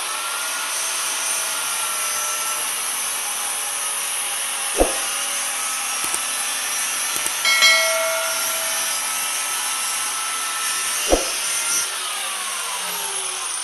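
Handheld angle grinder running steadily with a high whine, its disc worked along the joint between two tiled wall panels. There are two sharp clicks, and the whine falls in pitch near the end as the grinder winds down.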